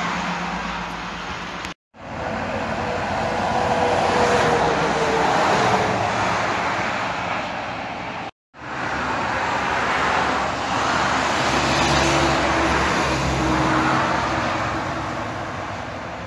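Highway traffic passing beneath an overpass: tyre and engine noise from lorries and cars swells as each vehicle approaches and fades as it goes by, one engine tone dropping slightly in pitch as it passes. The sound cuts out abruptly for a split second twice.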